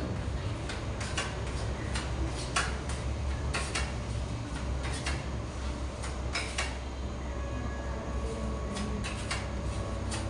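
Filler knife working two-part polyester body filler: irregular sharp clicks and short scrapes of the knife against the filler and surface, over a low steady hum.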